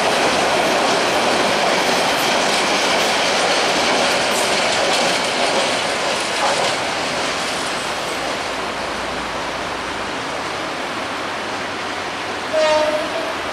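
Metre-gauge passenger train coaches rolling past, their wheels clattering over the rail joints, the noise easing off as the train pulls away. A short toot sounds near the end.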